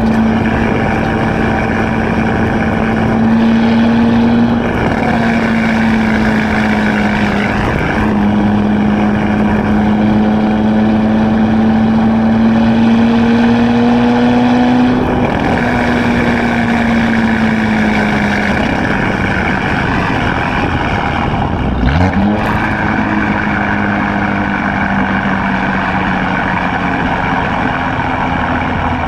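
2016 Camaro RS exhaust through a Borla ATAK axle-back, droning steadily under way. The pitch climbs and sags gently, breaking briefly a few times, and about three quarters in it drops sharply and climbs straight back up.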